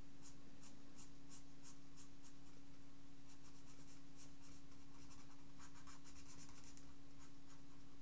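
Felt-tip marker scratching short quick strokes on paper, in three runs with brief pauses between, over a steady low hum.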